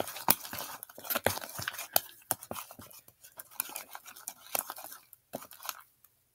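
Fingers squishing and kneading sticky shaving-cream slime in a plastic tub, making a quick, irregular run of wet clicks and pops.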